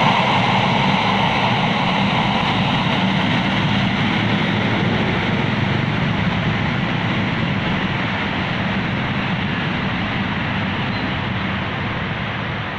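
C-130 Hercules's four turboprop engines running loud and steady, slowly fading as the aircraft moves off, the high-pitched part dying away first.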